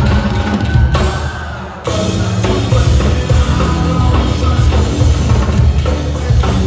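Live rock band playing loud, with a drum kit and a heavy low end. The music thins out briefly about a second in and crashes back in just under two seconds in.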